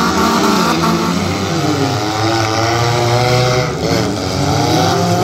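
Several race cars' engines running together around a figure-8 track, their pitch rising and falling as the drivers accelerate and lift off.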